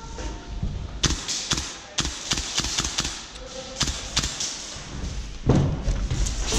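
Irregular thumps and sharp knocks, one or two a second, with a louder cluster about five and a half seconds in.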